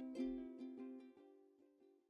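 Background music with plucked strings picking quick, evenly spaced notes, fading out to silence.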